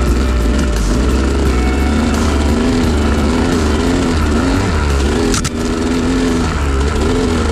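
Yamaha YZ250 two-stroke dirt bike engine, loud, its revs rising and falling over and over while riding. There is a brief break with a click about five seconds in.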